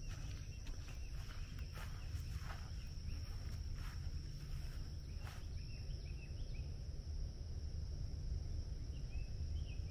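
A few crunching footsteps on a dirt trail in the first half, which then stop, over a steady high insect buzz. A few short bird chirps come in the second half.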